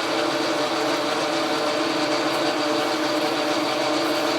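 Logan metal lathe running steadily while taking a turning pass, its motor and gearing giving an even sound with several steady tones.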